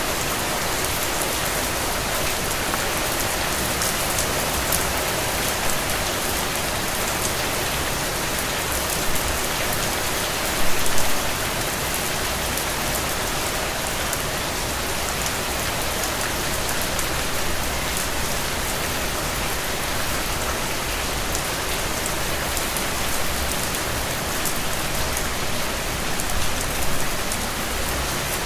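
Steady rain falling, with a dense hiss of drops and scattered individual drop ticks; a brief louder patter about ten seconds in.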